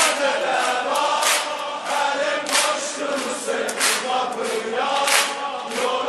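Male choir singing a devotional song to Imam Hussein in Azerbaijani, a passage between the solo sung lines, over a regular beat about every 1.3 seconds.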